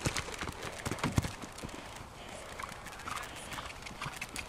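A horse's hooves beating on a sand arena as it canters past, close and loud for the first second or so, then fainter as it moves away.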